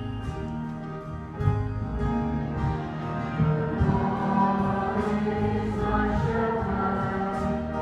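A young girl singing a church song with instrumental accompaniment, with several voices joining in.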